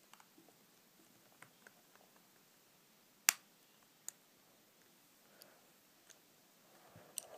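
Small flat-head screwdriver prying at the seam of a TomTom XL GPS unit's plastic casing: scattered faint clicks, one sharp click about three seconds in, another a second later and a couple more near the end.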